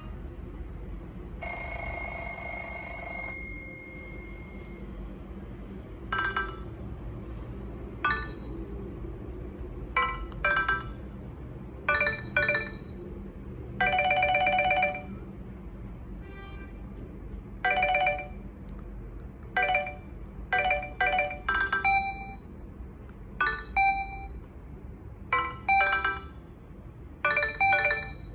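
Nokia 6303 Classic mobile phone playing a series of short electronic alert tones one after another: a two-second chime near the start, then brief beep and chime patterns every second or two, over a steady low hum.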